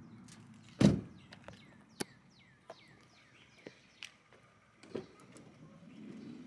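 Car door handling: a loud thump about a second in, then a few sharp clicks as the rear door handle is pulled and the door unlatches and swings open near the end.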